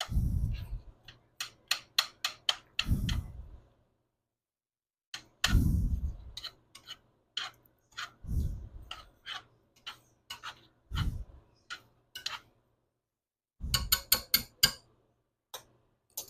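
Cooking utensils worked around a cast iron skillet of beans: irregular sharp taps, clicks and short scrapes with a few dull thuds, as ingredients are added and stirred in.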